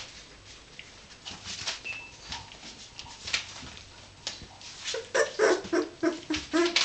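Three-week-old Irish terrier puppies whimpering: a quick series of short, high cries starting about five seconds in, after a stretch of scattered small scratches and clicks.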